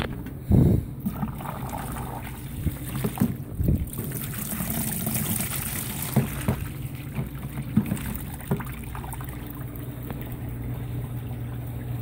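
Foamy wash water gushing from a Consul 16 kg top-load washer's drain hose into a plastic basin as the machine drains, over a steady low hum. A loud knock about half a second in.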